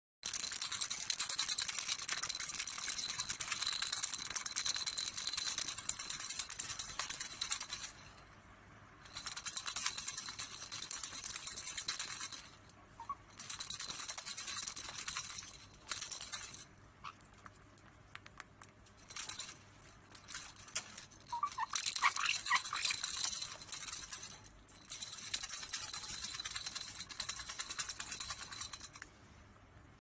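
A white-bellied caique shaking a small rattle toy with its beak, a fast, dense jingling rattle that comes in stretches of several seconds broken by short pauses.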